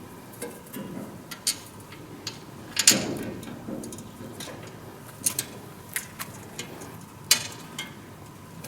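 Irregular sharp clicks and knocks of metal fan parts being handled and fitted together while assembling a quick-release grain-heap aeration fan, with the loudest knocks about 3 seconds in and near the end.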